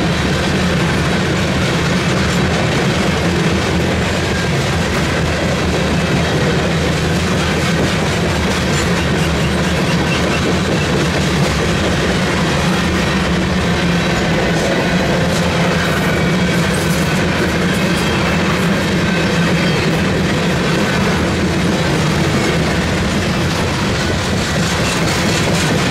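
Loaded covered hopper grain cars of a freight train rolling past close by: a steady, loud rumble of steel wheels on rail.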